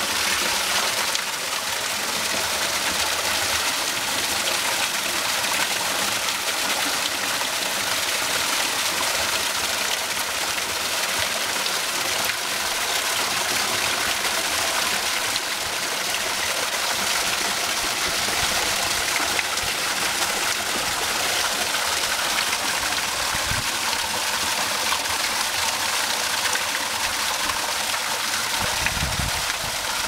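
Small waterfall pouring from a stone wall and splashing steadily into a shallow pool below.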